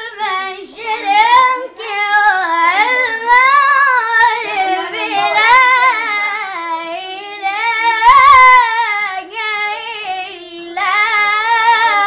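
A boy chanting Quranic recitation in a high voice. He draws each phrase out into long, wavering melodic runs, with short pauses for breath.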